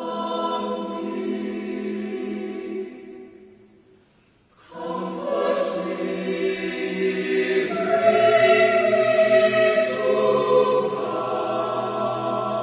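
Choir singing in two phrases. The first dies away about three to four seconds in, and after a brief pause a fuller phrase begins with several sustained voices.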